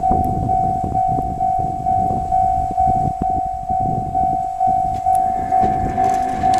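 Japanese level-crossing warning bell ringing, one clanging tone repeating about twice a second. Near the end the approaching freight train, hauled by a DD51 diesel-hydraulic locomotive, rises beneath it.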